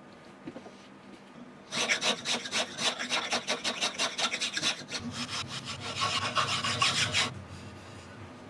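A wooden hammer handle being shaped by hand with a cutting tool, in quick scraping strokes of about four or five a second that shave the wood. The strokes start about two seconds in and stop about a second before the end.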